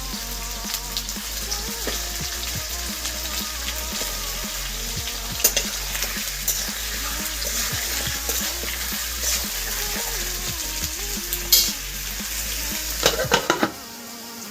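Food sizzling as it fries in a pan, stirred with a utensil that knocks against the pan a few times, with a cluster of knocks near the end. Background music plays underneath.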